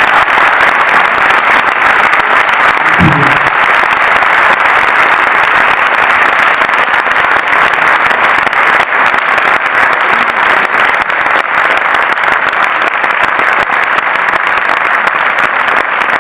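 Cinema audience applauding steadily, a dense sustained round of clapping for a guest who has just been introduced.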